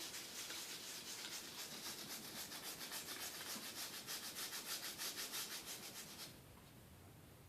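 A small brush scrubbing an iPod Classic's circuit board with isopropyl alcohol in quick, even back-and-forth strokes, several a second, working off dried Sprite residue left by liquid damage. The scrubbing stops about six seconds in.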